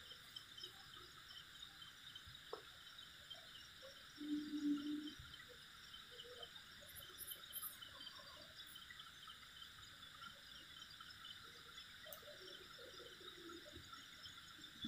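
Night chorus of crickets and other insects: a steady, dense chirring at several high pitches. About four seconds in, a brief low steady tone stands out for under a second.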